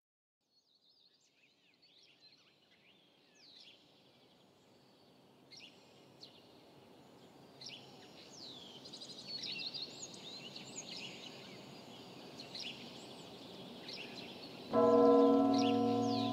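Songbirds chirping and trilling, fading in from silence and growing louder. Near the end a single large church bell is struck once and keeps ringing, the loudest sound.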